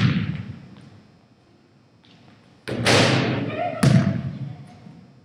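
A basketball thudding three times, hitting the backboard and rim and bouncing on the wooden floor of a school gym: once right at the start, then twice close together about three seconds in. Each thud echoes through the large hall.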